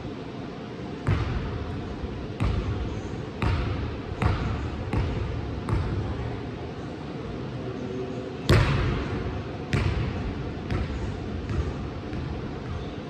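A basketball bouncing on a gym floor, about a dozen thuds roughly a second apart at uneven spacing, the loudest a little past halfway.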